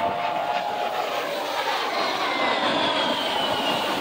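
A-10 Thunderbolt II jet flying overhead, its twin turbofan engines giving a steady rushing noise with a high whine that slowly drops in pitch in the second half.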